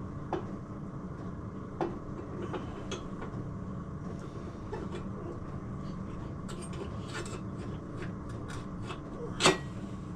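Light clicks and taps of metal engine casing parts being handled and fitted together, with a louder knock about nine and a half seconds in, over a steady low hum.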